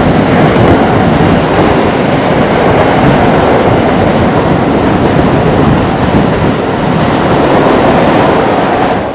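Amtrak passenger train's stainless-steel cars rolling past close by, a loud steady rumble of wheels on rail that falls off near the end as the last car goes by.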